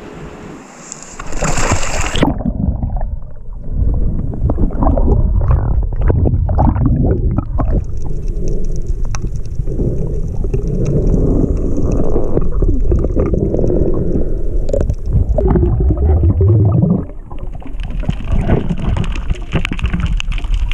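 A splash as a spearfisher jumps off a small aluminium boat into the sea. It is followed by the muffled, low water noise of a camera under the surface, with scattered clicks and knocks.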